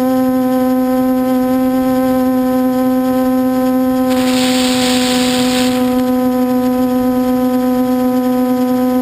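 Quadcopter's four MT2212 980kv brushless motors and 8-inch props humming at a steady pitch, picked up by the camera on the frame. About four seconds in, a hiss rises over the hum for under two seconds.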